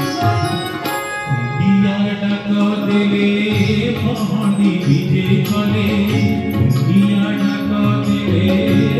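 Live Indian devotional music: a melody over a steady low drone that comes in about two seconds in.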